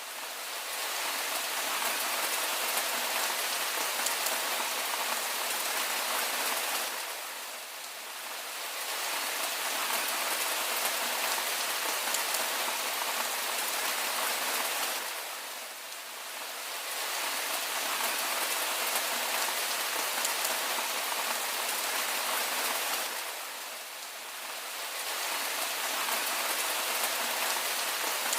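Steady rain falling, an even hiss that dips briefly in level about every eight seconds.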